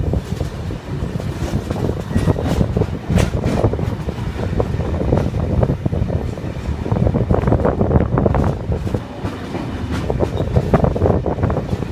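V-set double-deck electric train running along the track, heard from a phone sitting in a crack of the carriage window: a steady rumble and rush of air, with irregular clicks and clatter from the wheels on the rails.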